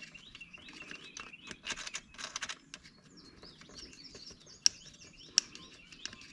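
Small metal clicks and light rattling as nuts and washers are fitted onto the edger's carburetor, with two sharp clicks about two-thirds of the way through. Birds chirp throughout.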